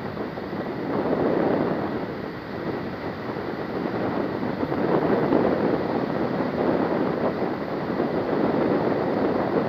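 Wind rushing over the microphone of a flying paramotor, a steady rush that swells and eases every few seconds.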